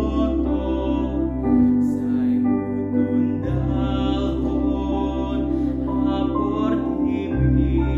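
A young man singing solo, holding long notes, over instrumental accompaniment of sustained low chords that change every couple of seconds.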